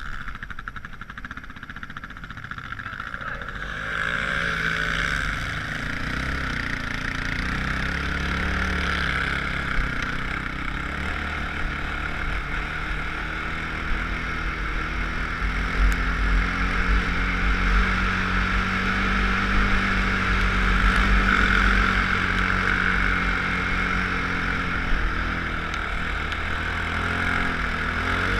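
Off-road vehicle's engine running while riding across sand, picked up by a helmet-mounted camera. It gets louder about four seconds in as the machine speeds up, then runs steadily with small rises and falls in pitch.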